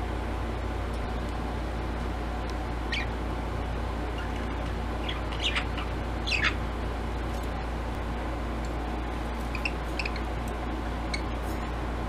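Budgerigars giving a few short, scattered chirps, the loudest about halfway through, over a steady low background hum.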